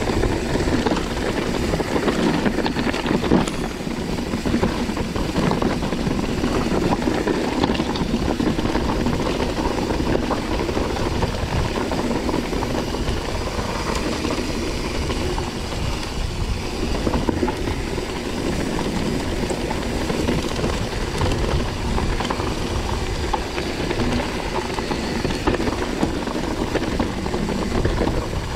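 Mountain bike riding over a loose gravel track: a steady rumble of tyres on stones with many small rattles and clicks from the bike throughout.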